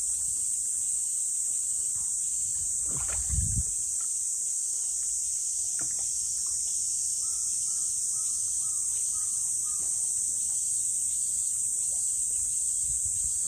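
Steady high-pitched cicada chorus, with a brief low sound from an Indian rhinoceros wading in its pool about three seconds in.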